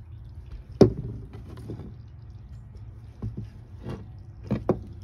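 A mower air filter is handled and set down on a wooden surface. There is one sharp knock about a second in and a few lighter knocks near the end, over a steady low hum.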